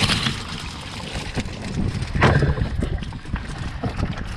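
Live spot prawns being shaken out of a prawn trap onto a rowboat's floor: irregular knocks and rustling, with one louder knock about two seconds in, over a low rumble of wind on the microphone.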